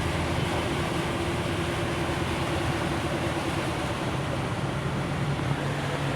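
Steady engine and road noise of cars creeping slowly along a flooded road, with a faint humming tone that fades after about three and a half seconds.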